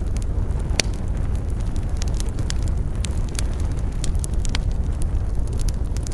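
Campfire burning: a steady low rumble of flames with frequent sharp crackles and pops of burning wood, irregularly spaced, a loud pop about a second in.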